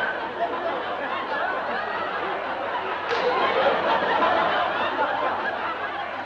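Audience laughter: many people laughing together, sustained and easing off slightly.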